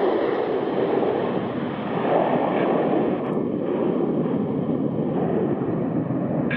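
McDonnell Douglas F-15C's twin Pratt & Whitney F100 turbofans running in full afterburner as the jet takes off and climbs away: a loud, steady rushing rumble.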